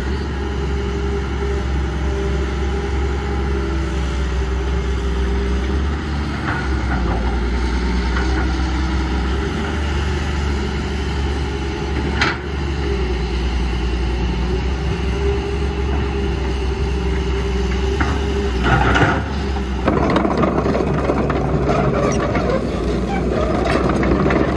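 Heavy diesel engine of an excavator or dump truck running steadily. One sharp knock comes about halfway, and the sound turns louder and rougher in the last few seconds.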